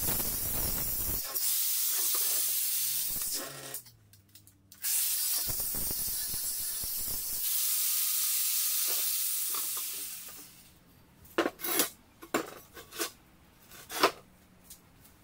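Angle grinder with an abrasive disc sanding the spokes of an aluminium alloy car wheel: a steady hiss that drops out briefly about four seconds in and stops about ten seconds in. After it, a few sharp metallic knocks as the wheel is handled, the loudest near the end.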